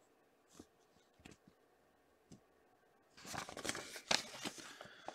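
A printed paper sheet handled in the hands: a few faint taps, then from about three seconds in a spell of paper rustling and crinkling.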